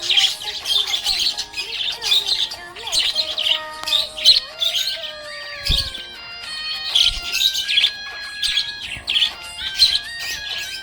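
Budgerigar chirping in a continual stream of short, bright chirps, over background music carrying a simple melody of held notes.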